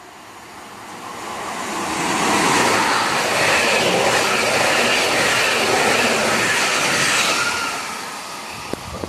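Passenger train of ÖBB coaches passing through at speed. The rushing wheel-and-rail noise builds over the first two seconds, holds loud while the coaches go by, then fades near the end as the last coach passes.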